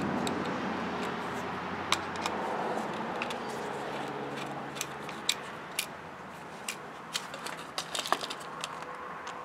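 Light, irregular clicks and taps of hands handling the electric log splitter's plastic switch and its wire connectors, more frequent in the second half, over a steady low hum.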